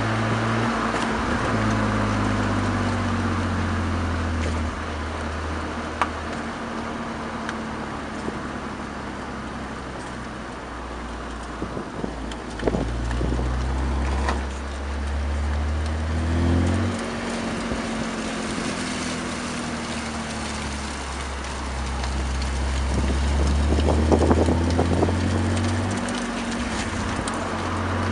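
BMW exhaust heard right at the tailpipes while the car drives with a manual gearbox: the engine note climbs slowly under acceleration and drops sharply a few times as gears are changed.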